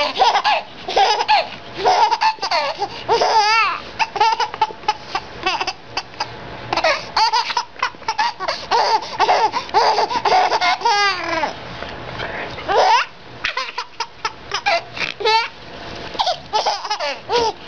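A baby laughing hysterically: belly laughs in quick, repeated bursts with no let-up, broken by a few high, wavering squeals.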